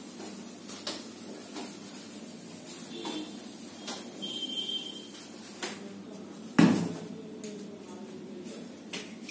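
Whiteboard duster wiping and tapping against a whiteboard as the board is erased. There are scattered light knocks, a couple of faint squeaks and one louder thump about two-thirds of the way through, over a steady low hum.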